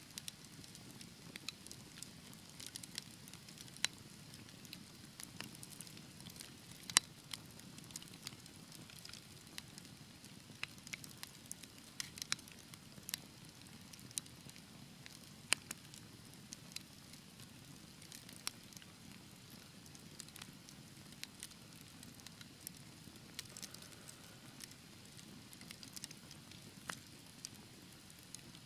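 Wood fire crackling in a fireplace: a soft steady low rustle of burning with irregular sharp pops and snaps scattered throughout, the loudest pops about 7 and 15 seconds in.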